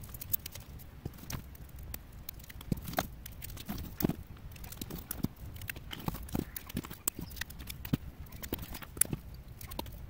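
Paper wrapping being stripped by hand from a chain of nickel-cadmium battery cells from a cordless drill's battery pack: a run of irregular light clicks and taps.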